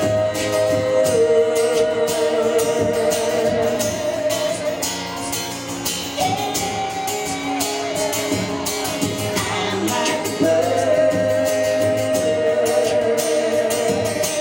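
Live singing with guitar accompaniment: a voice holds long sustained notes, with no clear words, in three long phrases.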